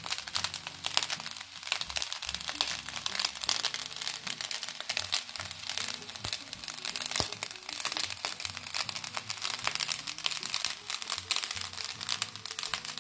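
Fried rice crackling and sizzling in a hot metal wok, a dense stream of small pops, under background music.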